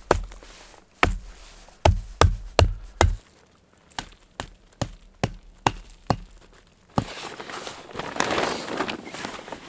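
A run of sharp knocks: heavy thuds about every half second for the first three seconds, then a series of lighter knocks, then rustling from about seven seconds in.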